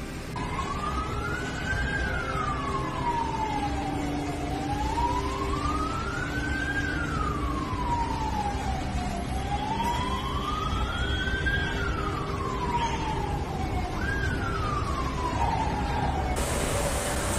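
Emergency vehicle siren on a slow wail, rising and falling about every five seconds, three and a half times, over steady background noise. A loud hiss cuts in near the end.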